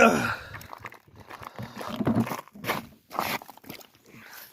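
A brief falling voice-like cry at the very start, then a few irregular crunching noises.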